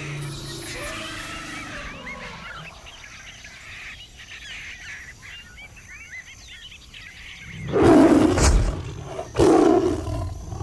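Birds chirping, then two loud roars of a large animal, like a big cat, near the end.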